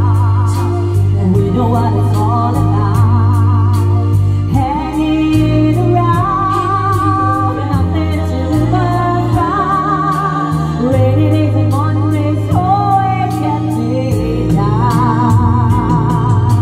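Music: a voice sings a slow melody with wide vibrato over backing music with sustained bass notes and a regular percussion tick.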